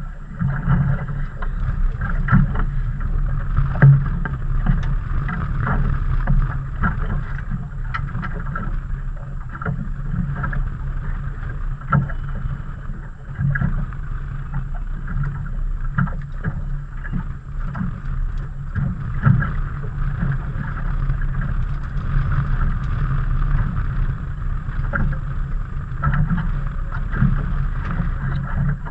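Steady wind and water noise aboard a small fishing boat on choppy water, with scattered short knocks and bumps.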